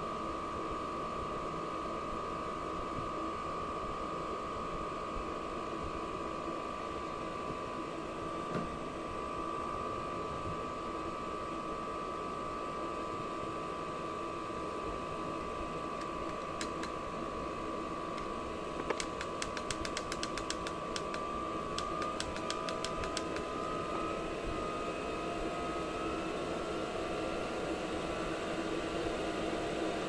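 Diesel air heater running: a steady blower-fan whine over a hiss. About two-thirds of the way through comes a quick run of sharp clicks, and after it the whine's pitch creeps slowly upward.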